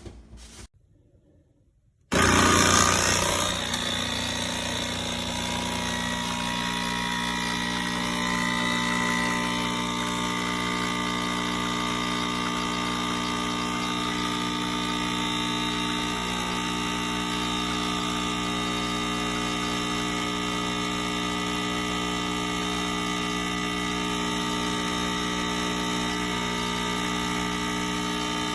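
Nespresso Inissia espresso machine's vibratory pump buzzing steadily as it runs, starting abruptly about two seconds in after a short silence.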